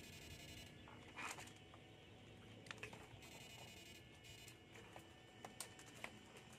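Near silence, broken by a few faint, sharp clicks and snaps scattered through the quiet.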